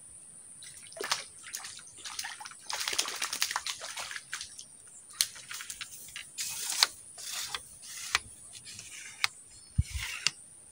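Water splashing and sloshing in irregular bursts as a hooked fish thrashes at the surface of a weedy pool, heaviest about three seconds in and again near seven seconds.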